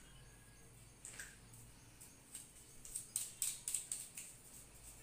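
Small sharp clicks and taps of a metal spinning reel being fitted into a fishing rod's reel seat, with a quick run of clicks in the second half as it is seated and locked.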